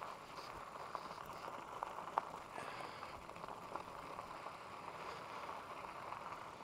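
Faint crackle of e-bike tyres rolling slowly over gravel, with scattered small clicks and one sharper click about two seconds in.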